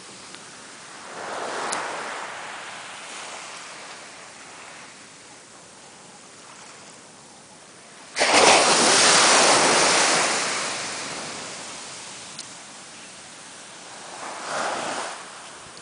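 Surf breaking and washing up a sandy beach, rising and falling in waves. The loudest is a sudden crash about halfway in that fades slowly over several seconds, with smaller swells near the start and the end.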